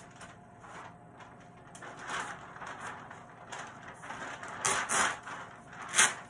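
Large sheets of paper on a flip-chart pad being lifted and flipped over the top, rustling and crinkling in several bursts, the loudest a sharp crackle near the end as a sheet goes over.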